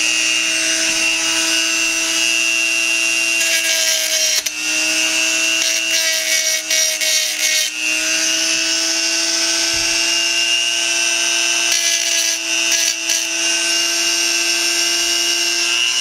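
Small corded electric rotary tool running at high speed, grinding to smooth the cut edge of the filler opening in a Zippo hand warmer's metal case. It gives a steady whine whose pitch sags briefly under load about four and a half and about seven and a half seconds in.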